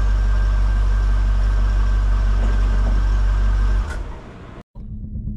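The 2002 Corvette's 5.7-litre LS1 V8 idling steadily, a low, even rumble that stops about four seconds in. A brief dropout follows, then outro music begins.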